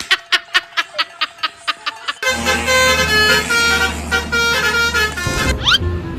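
Steady ticking, about five a second, then a telolet bus horn (Basuri-type multi-tone horn) plays a tune of steady notes over a low engine rumble. A quick rising sweep comes near the end.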